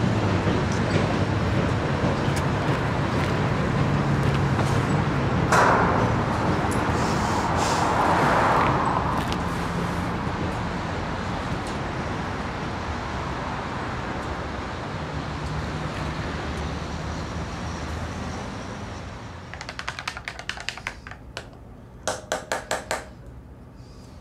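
Steady traffic rumble with a low hum and a louder hissing rush about six to nine seconds in, slowly fading away. Near the end come two short runs of rapid clicking.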